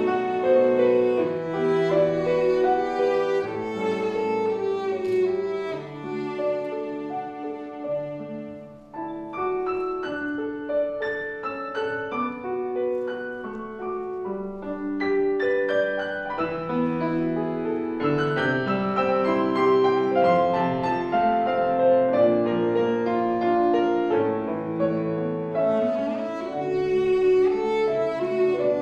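Cello playing a classical melody with piano accompaniment, with a brief lull about nine seconds in before the playing picks up again.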